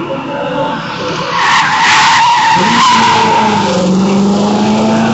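Classic rally car's tyres squealing as it slides hard through a tight asphalt corner, from about a second in. Its engine then pulls, rising slowly in pitch as the car accelerates away.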